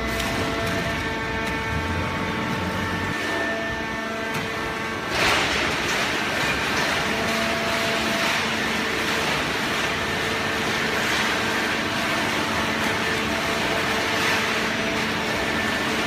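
Horizontal hydraulic waste-paper baler running, its motor and pump giving a steady hum with several even tones. About five seconds in a louder hiss comes in suddenly and carries on over the hum.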